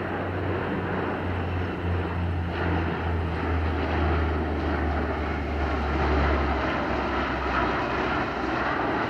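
Formation flypast of a P-3 Orion, a Boeing 757 and a C-130 Hercules. The deep drone of the four-bladed turboprop propellers drops in pitch as they pass, over a broad rush of engine noise that grows louder.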